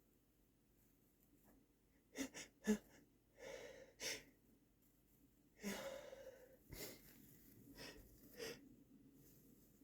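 A person's sneeze build-up that does not break: three short, sharp catches a little over two seconds in, then several heavy gasping breaths. The tickle comes from chhinkni sneezing powder, and the sneeze stalls as a false start.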